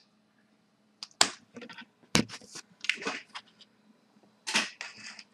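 Trading cards, plastic card holders and draw chips being handled on a tabletop: scattered light taps, clicks and short rustles, a handful of separate touches with gaps between them.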